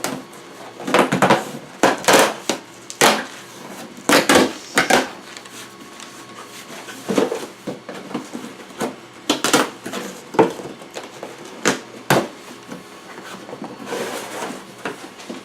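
Cardboard shipping packaging being handled and opened: irregular knocks, scrapes and rustles, with several sharper thumps.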